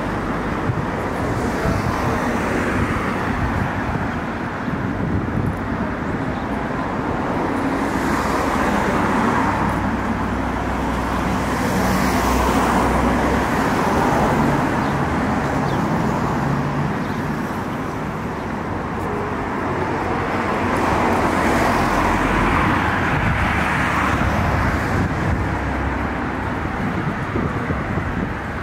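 Road traffic noise from cars on a main road, steady throughout, swelling a few times as individual cars go past.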